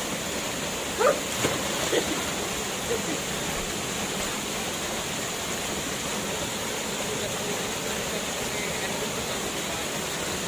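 Waterfall's steady rush of falling water, with a few short, louder sounds about one to two seconds in.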